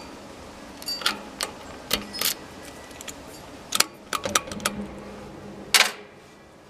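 Bell Catalyst 300 steel U-lock clicking and clacking as it is fitted round the bike and locked with its key: a string of sharp metal clicks, the loudest near the end.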